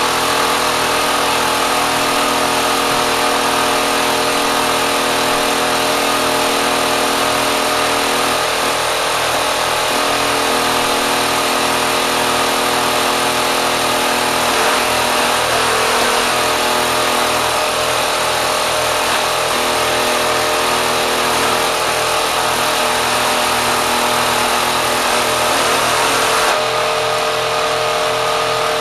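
Kenmore sewing machine driven hard by a 3/4 hp electric motor, running steadily at high speed: a loud steady hum with mechanical clatter and a fast regular beat.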